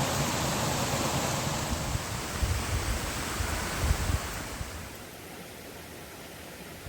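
Wind rumbling on the microphone over a steady rushing noise, in uneven gusts that die down about five seconds in, leaving a quieter rush.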